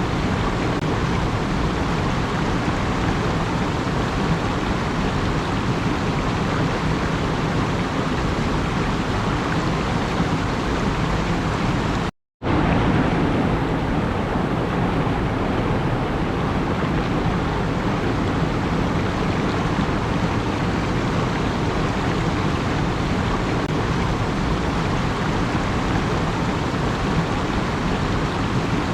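Steady, even rushing noise with no rhythm or pitch, which cuts out completely for a split second about twelve seconds in.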